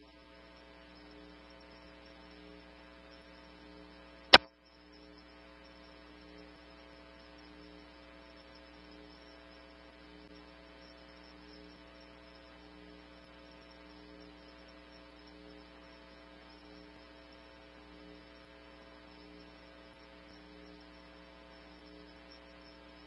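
Faint, steady electrical mains hum on a scanner radio feed between transmissions, with a single sharp click about four seconds in.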